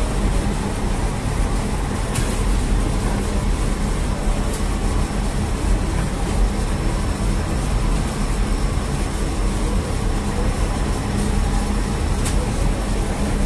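Steady hum and rush of bakery machinery running, from the taftoon bread oven and dough machine, with a few light clicks.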